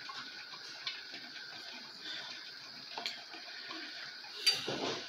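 Metal spoon stirring a thick ogbono mixture in a ceramic bowl, with a few light clinks against the bowl, the loudest about four and a half seconds in. A steady hiss from the lit gas stove runs underneath.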